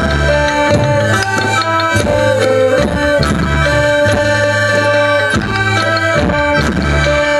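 Traditional Thai folk music played live by a troupe band: a sustained melody over a steady drum beat.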